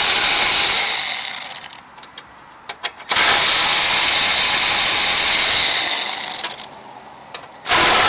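Power driver with a 10mm socket spinning out bolts in three runs: the first fades away about a second and a half in, the second runs from about three to six seconds, and a short third comes near the end. A few light clicks fall between the runs.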